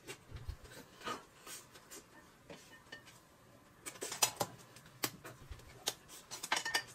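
Quiet eating sounds at a table: chopsticks tapping and scraping against a dish, with scattered sharp clicks that come more often from about four seconds in.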